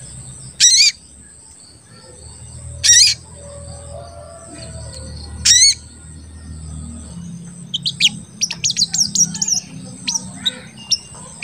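Sogon (sunbird) calling: three loud, sharp 'cuit' calls a couple of seconds apart, each dropping quickly in pitch, then a fast twittering run of short high chirps over the last few seconds. A faint low hum sits underneath.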